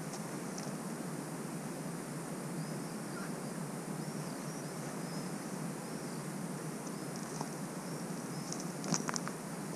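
Open-air ambience: a steady rush of wind on the microphone, with faint high chirps in the middle and a few light clicks near the end.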